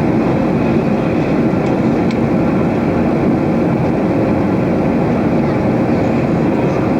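Jet airliner heard from inside the passenger cabin: steady engine and airflow noise with a few faint steady tones under it.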